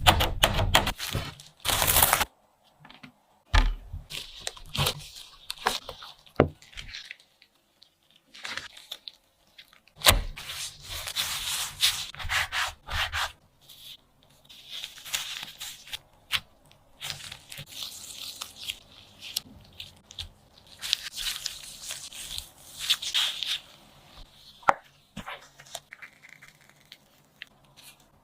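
Irregular scraping, rubbing and crackling of cake preparation by hand, broken by scattered sharp clicks and knocks.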